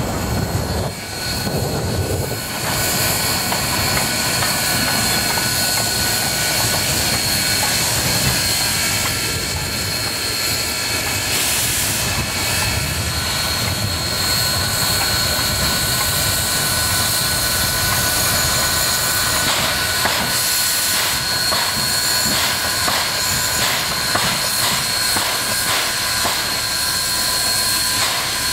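Bel-Del's 2-8-2 Mikado steam locomotive No. 142 and its passenger cars rolling past: a loud, steady rumble of wheels and running gear with a thin steady high tone over it. A run of sharp clicks comes in over the last several seconds.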